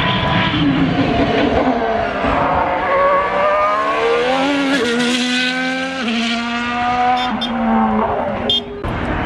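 Ferrari SF-23 Formula 1 car's 1.6-litre turbocharged V6 hybrid engine passing close by under power. Its pitch rises, then drops sharply twice as it shifts up.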